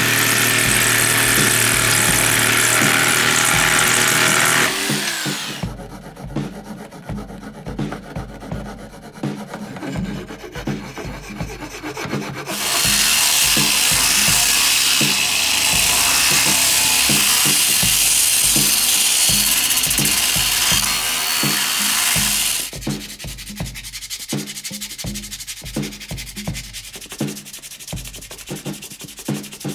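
An electric jigsaw cutting a wooden board, stopping about five seconds in. After a quieter stretch, an angle grinder with a sanding disc sands wood for about ten seconds. Near the end comes the quieter rubbing of sandpaper worked by hand over the wood. Background music with a steady beat runs underneath.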